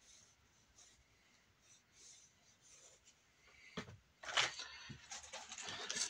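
Faint pencil strokes on sketchpad paper. About four seconds in come louder knocks and rustling as the paper pad is handled and lifted.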